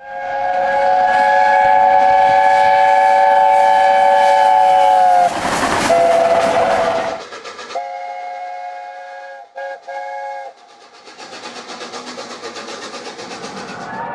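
British locomotive whistles: a chord of several tones held for about five seconds, cut off by a short burst of noise, then a second chord with a brief break in it. Near the end a steady noise with a faint even rhythm runs on.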